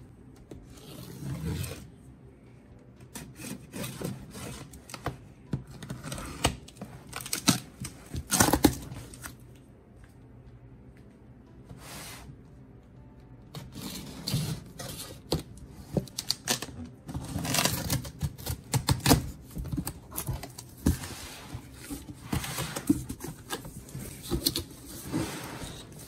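A cardboard shipping box being opened by hand: packing tape slit with a cutter, and cardboard flaps scraping, rubbing and clicking in irregular bursts, with a quiet pause about ten seconds in.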